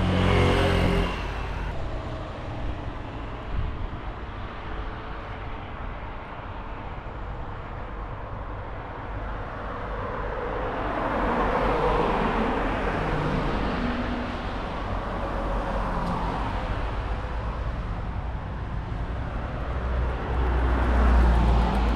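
Wind and road noise on the camera while riding, with a steady low rumble. A car passes about halfway through, swelling and then fading.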